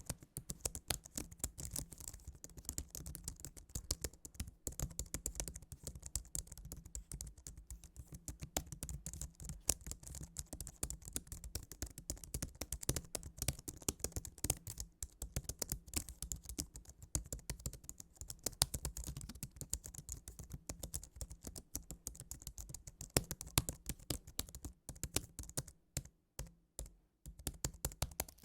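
Fast, continuous typing on a computer keyboard: a dense run of key clicks, broken by a few short pauses near the end.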